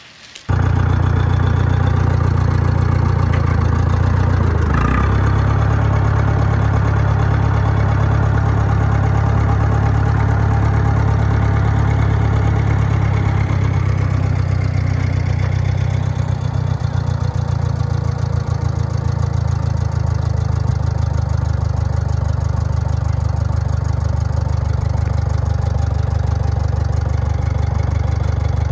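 Tractor engine running steadily at a low, even drone. It cuts in abruptly just after the start and dips briefly about five seconds in.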